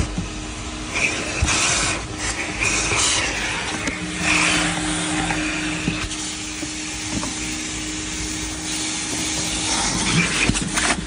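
Coin-operated car-wash vacuum running, its hose nozzle sucking over car floor carpet and cloth seats; the steady motor hum stays constant while the rushing air hiss swells and changes as the nozzle is pressed against and dragged over the fabric.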